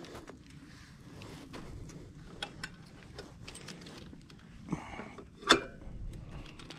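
Small clicks and rattles of hands working at a bicycle's handlebars and a fishing rod, with a sharp click about five and a half seconds in that is the loudest sound.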